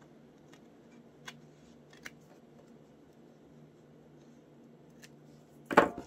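Small craft scissors snipping paper, a few separate soft snips with pauses between them. A short, louder knock comes near the end.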